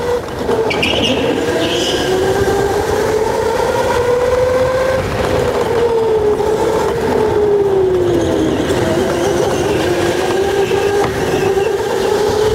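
Electric go-kart motor whining at speed, its pitch climbing, dipping about halfway through as the kart slows, then climbing again.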